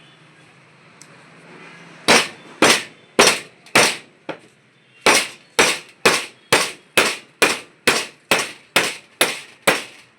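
Hammer blows on metal, about two a second, each sharp with a brief ring: four strikes, a light tap, then a steady run of about eleven more. This is typical of knocking an alternator apart to drive out its bearing.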